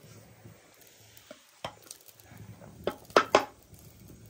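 Wooden spatula stirring and scraping cooked rice in an aluminium pot, with a few sharp knocks of cookware, the loudest two in quick succession a little after three seconds.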